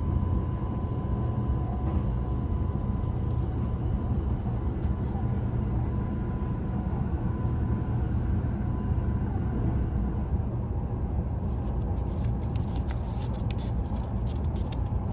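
Steady low rumble inside the cabin of an Odakyu Romancecar limited express train as it runs. From about three-quarters of the way in, there is a light crackle of paper tickets being handled.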